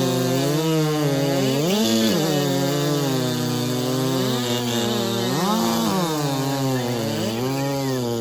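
Big-bore racing chainsaw of over 90cc (5.5 cubic inch class), its two-stroke engine at full throttle cutting a log in a timed race. The pitch sags under load in the wood and rises again about three times between cuts.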